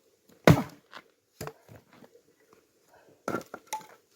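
Axe striking a firewood log: one sharp, loud blow about half a second in, a few smaller knocks and cracks of wood after it, and two more blows near the end. The log is not splitting easily and is being hit again.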